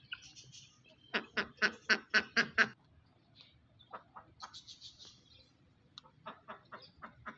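Poultry calling: a rapid run of about seven loud calls, some four a second, about a second in, then a few softer scattered calls and another quicker run of softer calls near the end.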